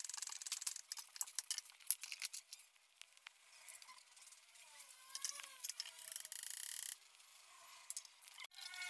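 Light metallic clicks and clinks of pliers and steel steering-gear parts being handled during reassembly of an electric power steering unit. About six seconds in, a brief steady hiss stops suddenly.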